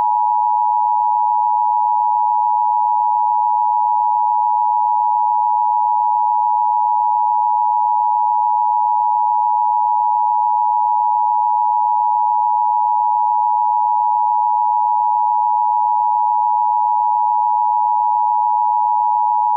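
Loud, unbroken electronic test tone, a single steady pitch held without change and cutting off suddenly at the end: the off-air tone of a broadcast malfunction screen.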